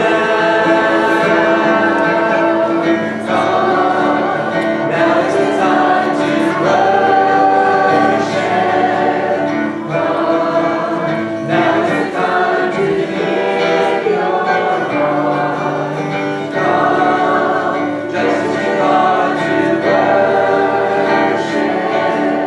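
Church choir singing a worship song together, accompanied by acoustic guitar.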